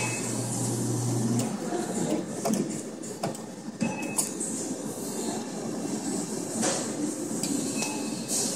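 Claw machine running as the claw is moved over the prizes and lowered: a steady mechanical whir with scattered clicks. A low hum stops about a second and a half in.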